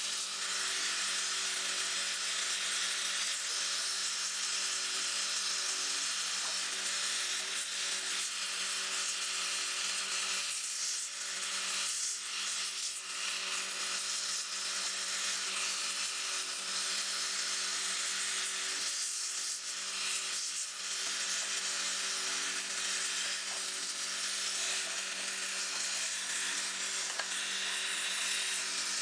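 Air-gas torch flame hissing steadily as it heats a crucible of silver to melt it, over a steady mechanical hum.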